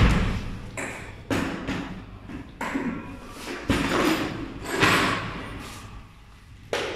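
A run of sudden thuds and knocks, about one a second, each trailing off with an echo. The first is the loudest.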